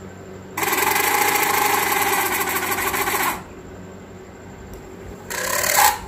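A bare high-speed table fan motor runs with a loud rattling buzz for under three seconds, cutting off sharply, then runs again briefly near the end. The noise comes from dry shaft bushes that have lost their oil.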